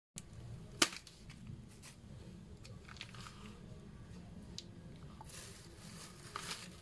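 A sharp knock about a second in, then faint crinkling of a plastic bag of frozen chicken balls being handled on a countertop, over a low steady hum.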